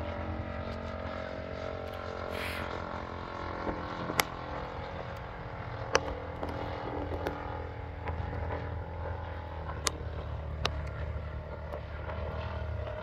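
Engine of a quarter-scale Phoenix Model Spitfire RC plane, droning steadily as it flies overhead. A few sharp clicks stand out above it, about 4, 6 and 10 seconds in.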